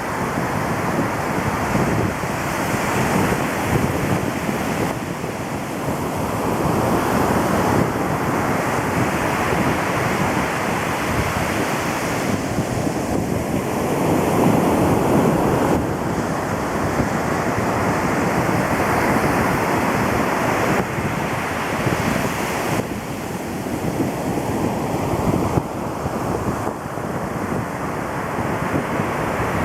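Ocean surf breaking and washing on a beach, rising and falling in slow surges, with wind buffeting the microphone.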